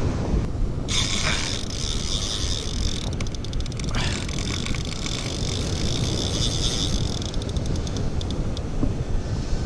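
Spinning reel being cranked to retrieve line, its gears whirring steadily, with two spells of rapid clicking, about three seconds in and near the end. Heavy wind rumble on the microphone.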